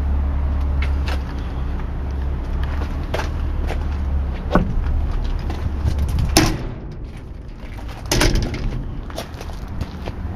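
Sheet-metal enclosure door of a Sullair TSR-20 air compressor being handled: several sharp metallic knocks and clanks, the loudest about six and a half and eight seconds in. A steady low rumble underneath drops away partway through.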